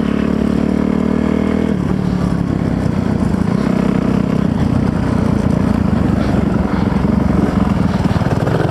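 Kawasaki KLX300R dirt bike's four-stroke single-cylinder engine running loud while being ridden. It holds a steady pitch, then changes with the throttle about two seconds in.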